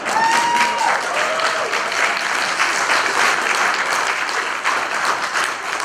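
Audience applauding, dense steady clapping, with a brief held shout from someone in the crowd at the start.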